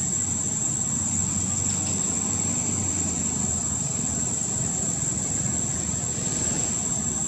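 Steady high-pitched drone of insects, unbroken, over a low steady rumble.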